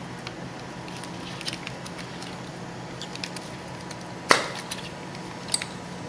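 Plastic wiring-harness connector being worked off an ignition coil pack: small clicks and rustles of handling, then a sharp snap a little past four seconds in as it releases, and a smaller click about a second later.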